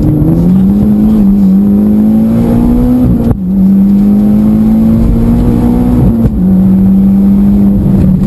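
Mitsubishi Lancer Evolution X's turbocharged four-cylinder engine accelerating hard under full throttle, heard from inside the cabin. The engine note climbs, drops sharply at an upshift a little before halfway, climbs again, and drops at a second upshift about three quarters through.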